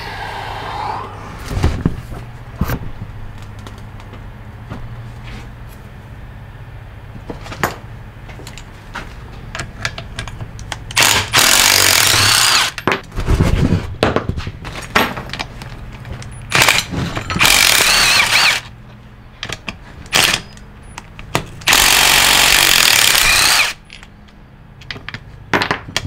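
Cordless impact driver hammering bolts loose on an NP241 transfer case's aluminium housing, in three bursts of about a second and a half to two seconds each, with scattered knocks and clanks of the case being handled between them.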